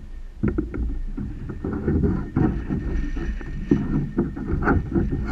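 Repeated knocks and bumps against a kayak hull as a largemouth bass is handled and unhooked over the side, starting about half a second in and going on irregularly.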